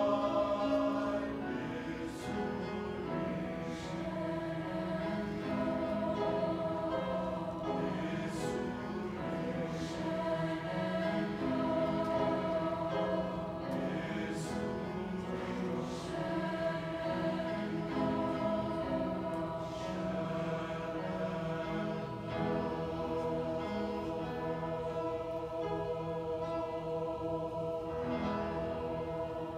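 Large mixed choir of men and women singing together in held, sustained chords that shift every second or two.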